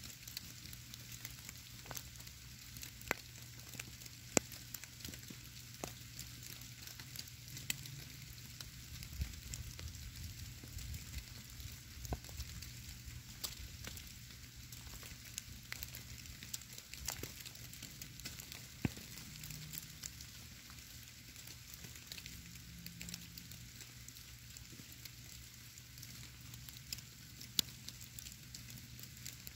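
Snow falling in a woodlot: a steady soft hiss of flakes landing, with many tiny irregular ticks as they strike the stone, leaves and ground.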